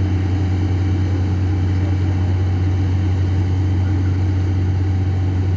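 An engine running steadily at constant speed: an even, unchanging low hum.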